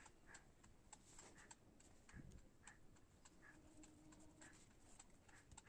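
Near silence, with faint, fairly regular ticks, about three a second.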